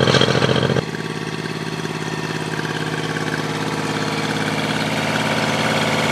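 Honda 30 HP three-cylinder four-stroke outboard idling steadily out of the water on a garden-hose flushing fitting, after its three carburetors have been cleaned. The sound drops a little in level about a second in.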